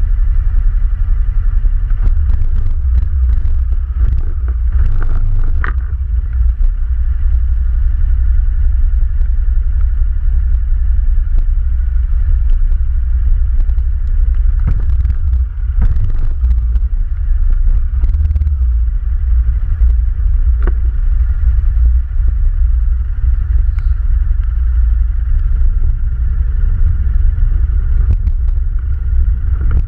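ATV engine running steadily with a deep rumble, with scattered short knocks and rattles.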